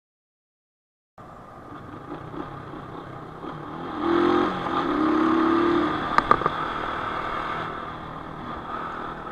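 Rusi Classic 250 motorcycle being ridden, its engine running under a steady rush of wind noise on a helmet camera's microphone, starting after about a second of silence. About four seconds in a steady tone sounds twice, louder than the rest, with a few sharp clicks just after.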